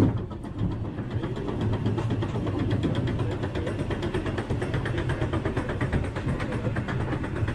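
Roller coaster train running along its track with a continuous fast rattling clatter over a low rumble, opening with one sharp knock.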